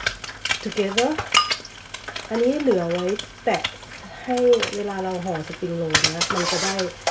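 Metal spoon scraping and tapping inside a ceramic bowl, giving short squeaky scrapes and clicks, over eggs sizzling in hot oil in a wok; the sizzle swells near the end.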